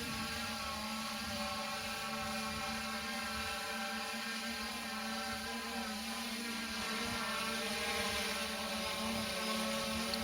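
3DR multirotor drone hovering, its motors and propellers giving a steady whirring hum whose pitch wavers slightly a little past halfway.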